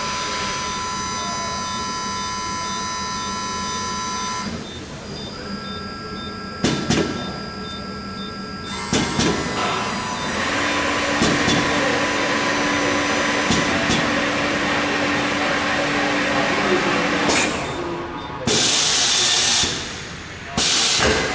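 Automatic tyre-changing machine running its cycle on a balloon tyre: motors whine, with sharp mechanical clicks and a steady hum through the middle. Near the end come two loud bursts of hiss.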